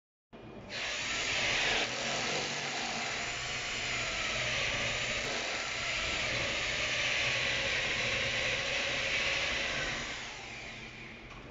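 Corded electric drill fitted with a hole saw, running steadily as it cuts a round hole in the ceiling for a speaker. It starts under a second in and dies away near the end.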